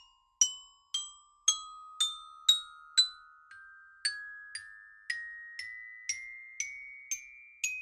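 Music: a run of bell-like mallet notes like a glockenspiel, struck about twice a second. Each note rings and fades, and the pitch climbs slowly step by step. The notes are louder over the first three seconds and softer after.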